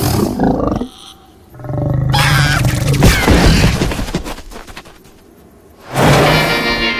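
Cartoon sound effects of a giant reptile monster growling and roaring: a short burst at the start, then a longer, low growl from about a second and a half in that fades away, with another loud sound starting near the end.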